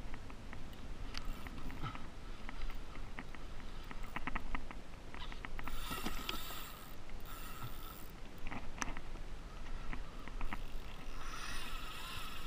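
Sounds of a sit-on kayak on the sea: irregular small clicks and knocks against the hull, with two short splashes of water, one about halfway through and one near the end.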